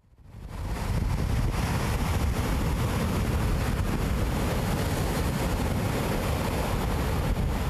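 Ocean surf breaking and washing up on a sandy beach, with wind blowing on the microphone. It fades in over the first second, then holds steady.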